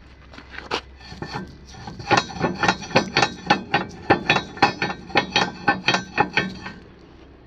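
A quick, even series of metallic knocks with a ringing tone, about three a second, starting about two seconds in and stopping near the end, after a few scattered lighter clicks.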